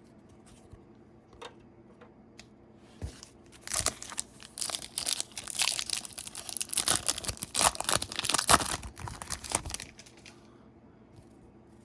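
A trading card pack wrapper being torn open and crinkled, a dense stretch of tearing and crinkling starting about four seconds in and lasting some six seconds, after a few light clicks.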